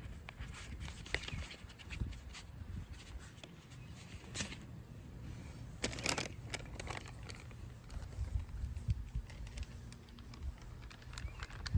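Scattered light clicks and two brief rustling bursts, about four and six seconds in, over a steady low rumble: the sound of things being handled during taco assembly.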